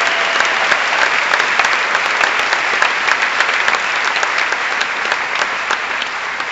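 Large audience applauding loudly, a dense clatter of many hands clapping that begins to die down near the end.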